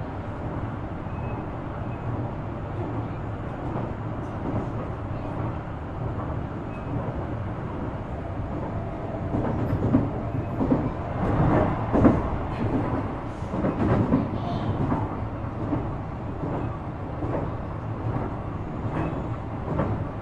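Shizuoka Railway A3000-series electric train heard from inside the car while running: a steady rumble of wheels on rail with frequent clicks and clatter. It grows louder for a few seconds about ten seconds in.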